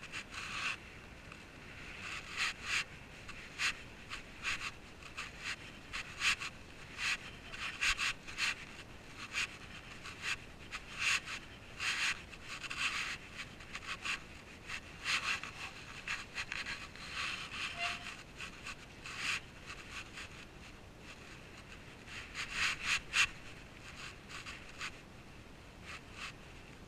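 Irregular scraping and rustling rubs right against a body-worn GoPro camera as its wearer moves about, in quick uneven clusters of short rasps.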